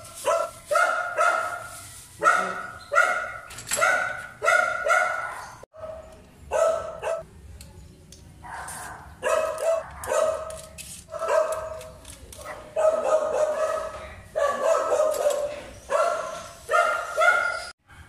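A dog barking over and over, in runs of quick, high barks about two a second, with brief pauses between runs. The sound cuts off abruptly twice.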